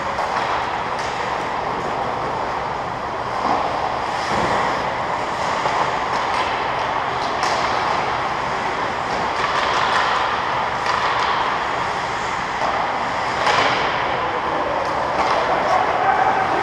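Ice hockey game noise in an indoor rink: a steady wash of skate blades on the ice, with scattered sharp clicks of sticks and puck and a few louder spells.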